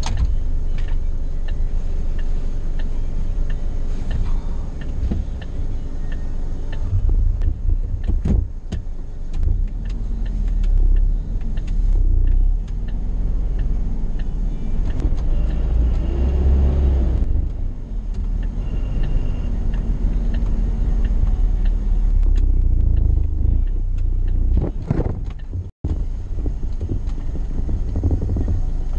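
Car driving at road speed, heard from inside the cabin: a steady low rumble of tyres and engine, with the engine note rising and falling a few times in the middle, and scattered light clicks. The sound cuts out for an instant near the end.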